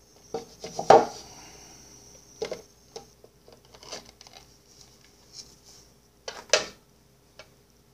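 Plastic deli cups knocking and clattering on a tabletop as they are handled, with paper towel being pulled out of a cup; a series of sharp knocks, the loudest about a second in and again about six and a half seconds in.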